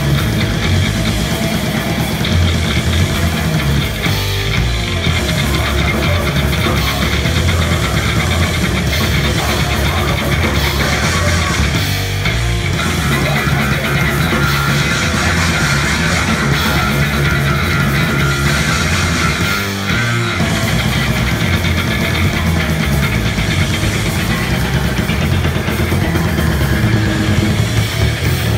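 A live heavy rock band playing loud, with electric bass, distorted guitar and drums, and short breaks in the playing about every eight seconds.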